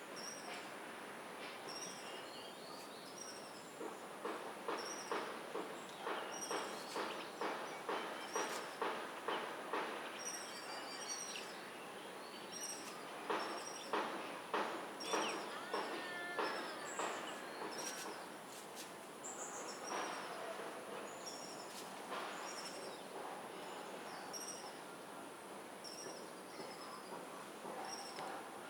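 Laced woodpecker tapping on wood, a run of evenly spaced knocks at about two a second, then a second shorter run after a pause. Repeated high bird chirps and a steady high insect drone continue throughout.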